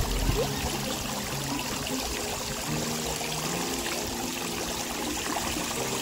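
Water fountain jet spraying and splashing down onto a pool, a steady rush of falling water.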